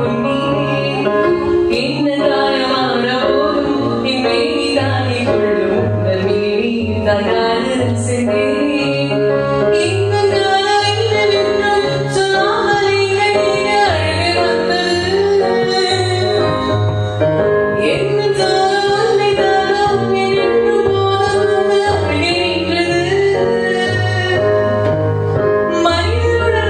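A woman singing a song with instrumental accompaniment, over a bass line that steps from note to note.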